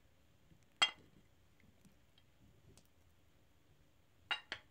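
Three faint, sharp clinks from handling a glass mixing bowl with a hand mixer's steel beaters in it: one about a second in, then two in quick succession near the end. The mixer itself is not running.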